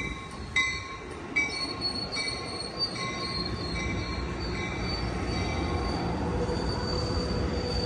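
Bi-level passenger cars of a departing train rolling past: a low rumble of wheels on rail that grows steadily louder as the train gathers speed. Short high wheel squeals repeat about once a second in the first few seconds, and a steady high squeal sets in near the end.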